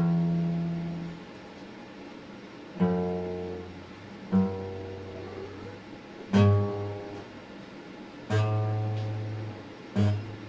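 Acoustic guitar: six slow strummed chords, roughly one every two seconds, each left to ring and fade before the next.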